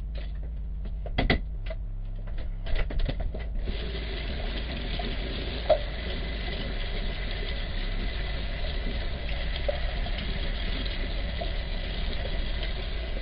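A few knocks and clatters of kitchen utensils, then a kitchen tap running steadily into the sink from about four seconds in as the stick blender is rinsed off, with one sharp click partway through.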